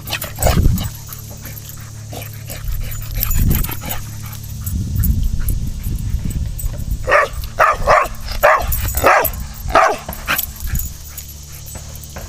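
A dog barking: a quick run of about eight short barks a little past the middle, over a low rumble.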